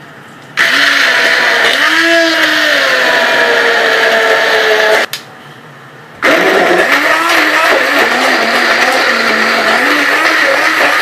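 Electric blender grinding coriander, garlic, green chillies, cumin, salt and a little water into chutney, run in two bursts: it starts about half a second in, stops a little after five seconds, and starts again about a second later. The motor's pitch wavers up and down as the blades work through the ingredients.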